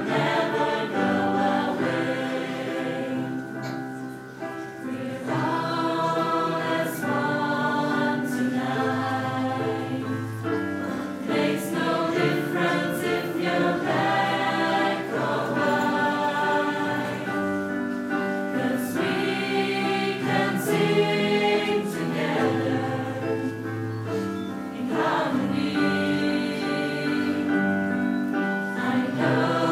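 Mixed choir of men and women singing a Christmas song in harmony, moving through long held chords.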